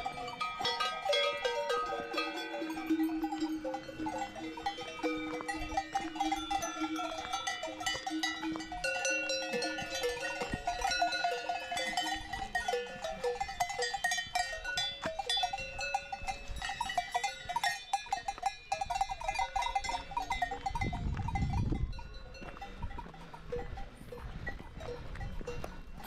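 Cowbells on grazing Swiss alpine cows clanking and ringing irregularly, several bells at different pitches overlapping. The ringing eases off about four seconds before the end, just after a short low rumble.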